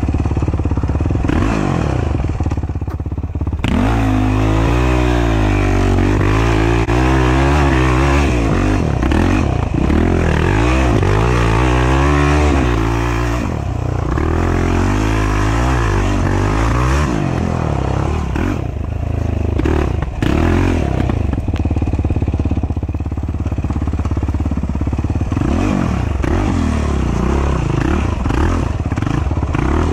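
Race ATV engine working through a slow, tight woods trail, its pitch rising and falling over and over as the throttle is opened and shut, with short drops when the throttle is closed.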